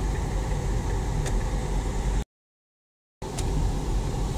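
Steady road and engine noise inside the cabin of a 2022 Chevrolet Captiva on the move, a low rumble with tyre hiss. Past the middle the sound cuts out completely for about a second, then comes back.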